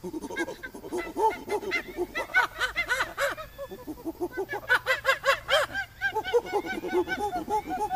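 Monkey-like chattering calls, a fast, unbroken run of short hooting calls that rise and fall in pitch. It starts suddenly, with a louder, higher stretch about five seconds in.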